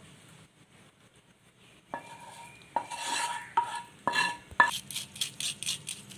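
Kitchen utensils clinking against a pan while dissolved palm sugar syrup is strained. After a quiet start there are five sharp knocks with a short ring, then quick tapping about four or five times a second.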